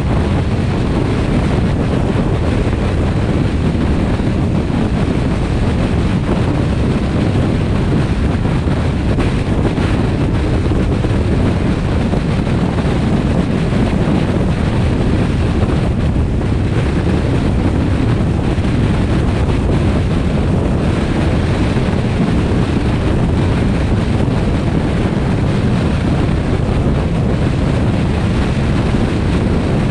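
Steady wind noise on the microphone over the road and engine noise of a moving car, an even rush with no breaks.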